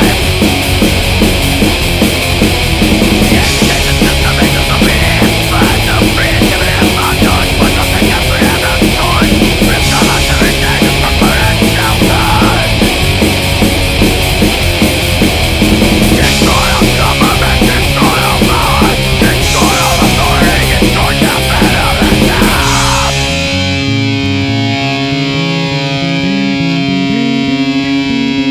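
A heavy rock band playing an instrumental passage with distorted guitar, bass and driving drums. About 23 seconds in, the drums and bass drop out, leaving a lone distorted electric guitar playing sustained notes.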